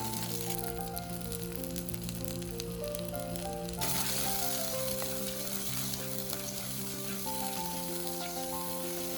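Food frying in a pan, a steady sizzle that grows much louder and brighter about four seconds in.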